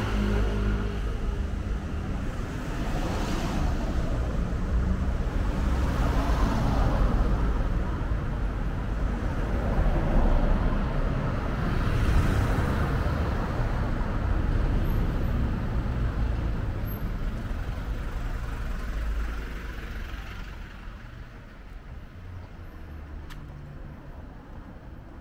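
Road traffic: motor vehicle engines running and passing close by, a deep rumble that dies away about twenty seconds in.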